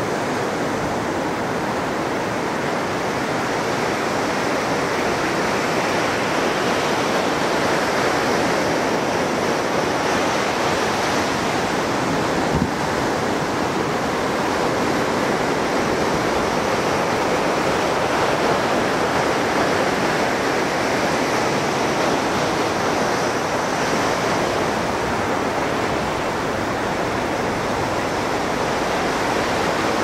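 Pacific Ocean surf breaking and washing up a sandy beach: a steady, unbroken roar.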